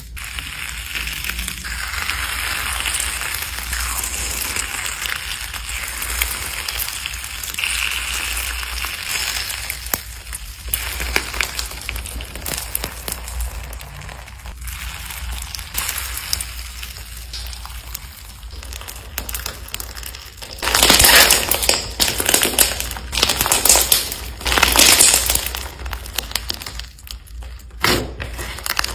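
Slime being squeezed, poked and kneaded by hand: sticky crackling and popping, including a slime with crunchy beads mixed in. The loudest crunchy bursts come about three-quarters of the way through.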